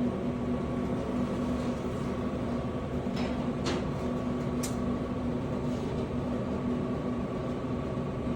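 Refrigerated drink vending machine's cooling unit humming steadily, with a few light clicks of cans being handled about three to four and a half seconds in.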